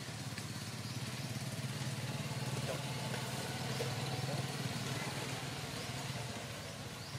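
A motor engine running steadily at an even speed, a low pulsing hum.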